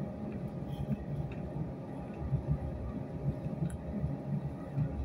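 Steady low rumble of a passenger train's carriage while it runs, heard from inside, with a faint steady hum above it.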